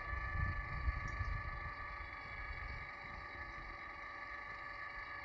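ChickenGuard automatic coop door motor unit running steadily with a thin whine as it winds the door back up, reopening after an obstruction stopped it. There is a low rumble during the first two seconds.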